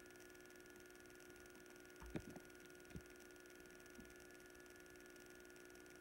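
Near silence: a steady electrical hum, with a few low thumps about two and three seconds in and a fainter one near four seconds.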